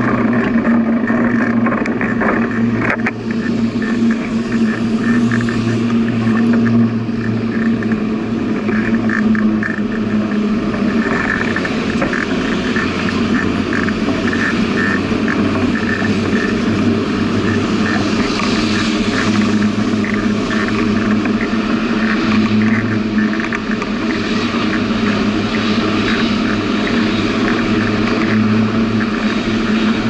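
Steady wind and rolling noise from riding a bicycle, with a constant low hum underneath.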